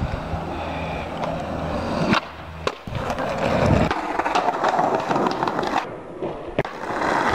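Skateboard wheels rolling over rough tarmac and paving, with a few sharp clacks of the board striking the ground as tricks are popped and landed.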